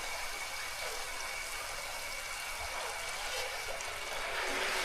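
Mandazi dough deep-frying in hot cooking oil, a steady sizzle that swells a little near the end.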